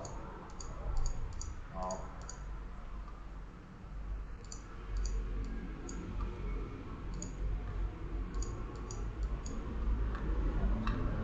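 Computer mouse clicking irregularly, often in quick pairs like double-clicks, over a steady low hum.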